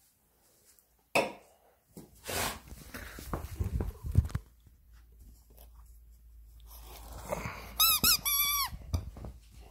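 Squeaky dog toy giving a quick run of a few high squeaks with a wavering pitch, about eight seconds in, after several seconds of rustling and knocking.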